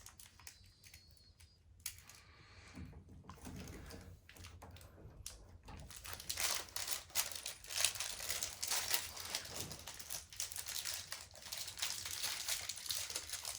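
Small clicks, taps and scrapes of a new door latch and metal faceplate being handled and fitted into the edge of a door, sparse at first and coming thick and fast from about six seconds in.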